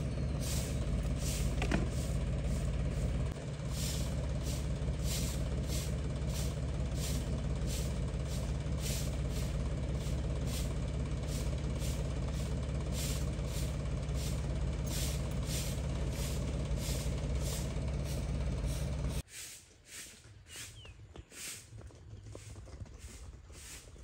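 Tractor engine running steadily at idle, with a regular tick about twice a second. It cuts off abruptly about 19 seconds in, leaving a much quieter background.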